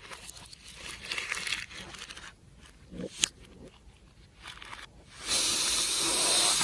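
Slime being handled, with soft crinkly, sticky crackling and a sharp click about three seconds in, followed by a loud steady hiss for the last second or so.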